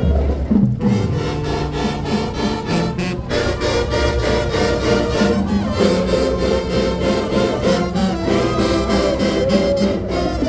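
Marching band playing a tune: brass horns over a steady run of drum strikes.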